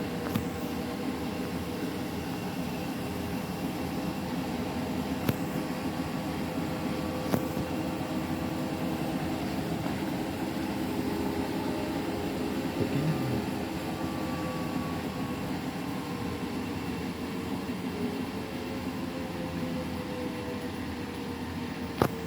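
Washing machine spinning its drum with two pillows inside on the final spin: a steady hum and motor whine whose pitch slowly sinks a little in the second half, with a few light clicks.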